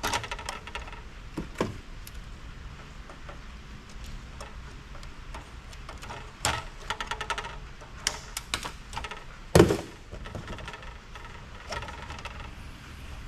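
Clicks and knocks of parts and tools being handled while a stereo power amplifier is taken apart for scrap, in small scattered clusters, with one louder knock near the end.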